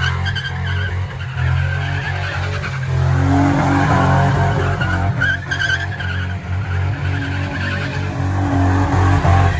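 Car doing a burnout to warm its tires: the engine is held at high revs while the spinning rear tires squeal and skid without a break.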